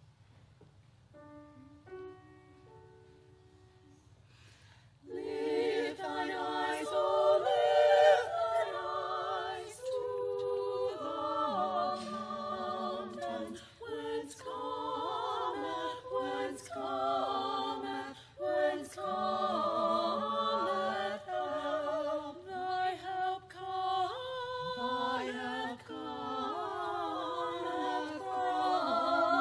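A choir singing, with wavering, vibrato voices, beginning about five seconds in. Before it come a few soft held tones.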